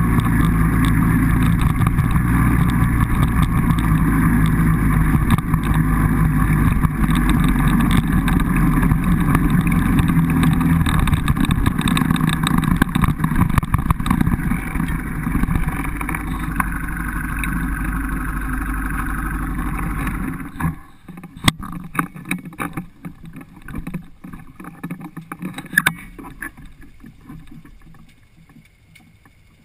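Quad bike engine running steadily, then cutting off abruptly about two-thirds of the way through. Scattered clicks and knocks follow, fading away.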